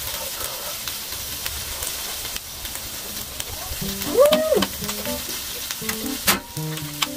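Pork belly slices and kimchi sizzling on a round grill pan: a steady hiss dotted with small crackling pops. One sharp click about six seconds in.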